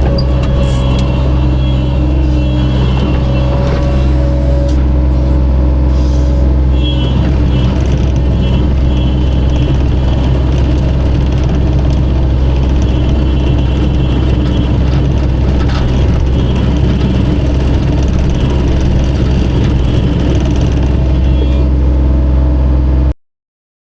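An engine running at a steady speed, a constant low drone, which stops abruptly near the end.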